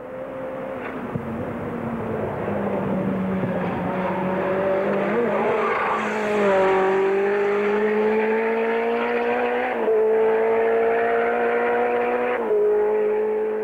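Cheek C288 race car's Ford BDT engine running hard on track, one continuous engine note whose pitch and loudness shift in steps about six, ten and twelve and a half seconds in.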